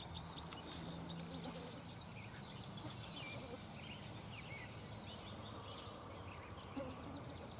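Faint ambience with scattered short bird chirps and calls over a steady background hiss.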